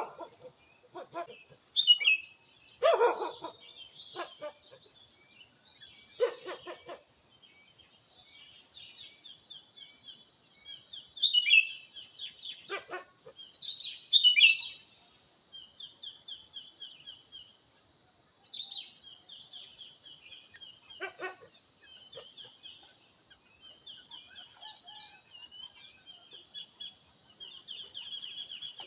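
Birds chirping in short repeated phrases over a steady high-pitched drone, with a few louder, fuller calls breaking in several times.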